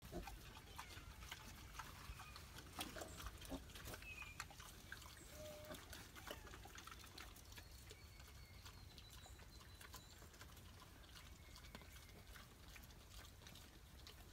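Faint, scattered grunts and short squeaks of Hampshire × Texas wild hog cross piglets, with light rustling and ticking that is loudest around three seconds in.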